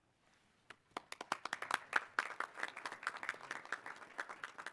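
Light applause, with separate hand claps heard, starting about a second in and thinning out near the end.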